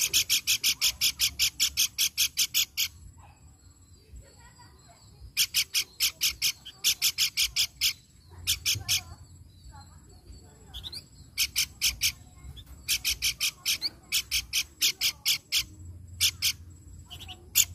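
A caged pelanduk bukit babbler singing: runs of sharp, evenly repeated loud notes, about five or six a second, each run lasting two to three seconds with short pauses between.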